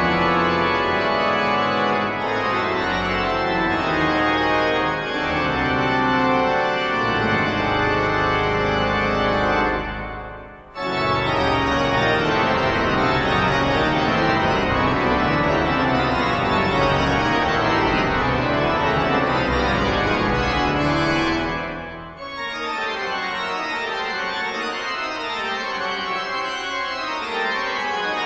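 Pipe organ music playing full, sustained chords. The sound dies away briefly about ten seconds in, then returns, and turns to a softer passage with less bass about twenty-two seconds in.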